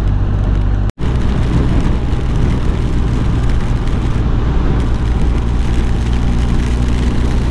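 BMW R1250 GS Adventure's boxer-twin engine running steadily at cruising speed under wind rush on the helmet-height camera. After a sudden break about a second in, the same steady engine note continues under a stronger hiss of heavy rain and tyre spray on a flooded road.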